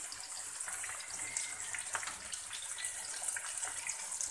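Batter-coated chicken pieces deep-frying in hot oil, freshly dropped in: a steady high sizzle with many fine crackles.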